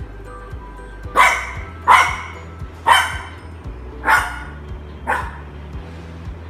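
French bulldog puppy barking five times, about a second apart, the last bark weaker, over background music.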